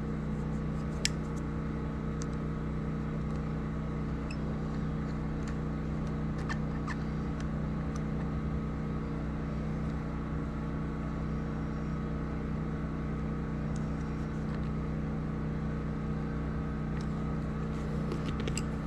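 Steady machine hum with several fixed tones, unchanging throughout, and a few faint scattered clicks from small carburetor parts and a screwdriver as the pilot jet is threaded back in.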